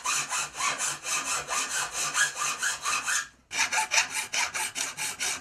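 A hand file rasping across the steel teeth of an old two-man crosscut saw held in a vise, sharpening them: quick, even strokes, about six a second, with a brief pause about three seconds in.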